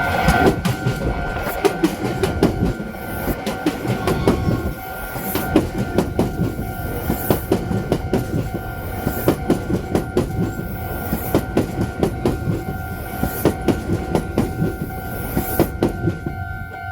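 A train passing through a level crossing, its wheels clattering over the rail joints in a steady run of knocks and rumble that fades away near the end. Through it the crossing's warning alarm keeps ringing on two steady tones.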